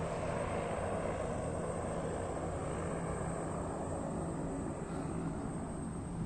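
Engine drone of a skydiving jump plane overhead, a steady low hum that holds throughout.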